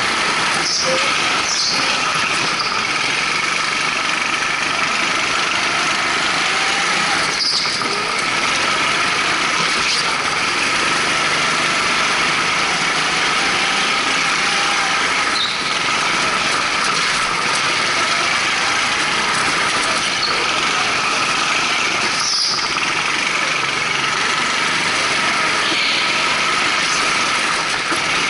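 Onboard sound of an indoor rental go-kart driven at speed, its Honda GX200 single-cylinder four-stroke engines running steadily. A few brief high tyre squeals break through as it takes corners.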